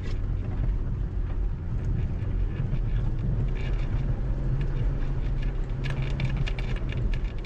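Off-road vehicle's engine running at a steady low drone, with scattered clicks and rattles from about three and a half seconds in to near the end.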